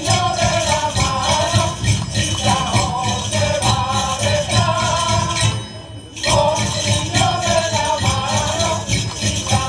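A group of singers performing a Christmas song with jingling, shaken percussion keeping a steady beat; the music breaks off briefly about six seconds in, then resumes.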